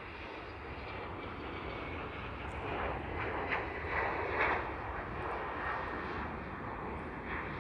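Jet airliner engine noise: an Airbus A319 rolling along the runway after touchdown, with a second jet taking off behind it. The noise builds to a peak about four seconds in, then eases.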